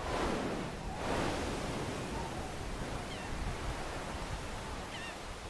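A steady hiss with two whooshes about a second apart at the start, then a few faint short chirps later on.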